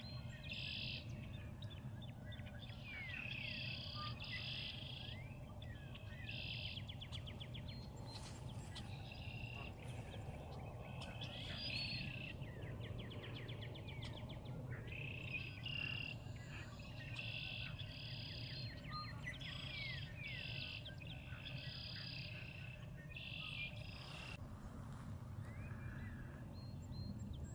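Faint outdoor chorus of small wild birds chirping, with short high buzzing trills repeating every second or two over a steady low rumble.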